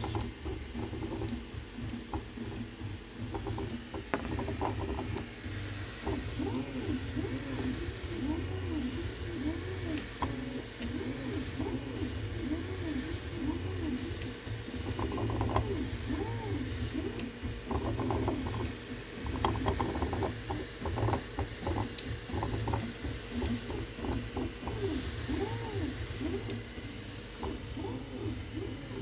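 DIY 3D printer running a print: its stepper motors whine in short arcs of rising and falling pitch as the print head and bed move back and forth, over a steady low hum, with scattered clicks.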